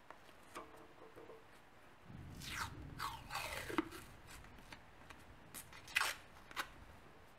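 Masking tape pulled off its roll in a long, uneven ripping unroll from about two seconds in. A couple of short, sharp tears follow near the end as the strip is torn off.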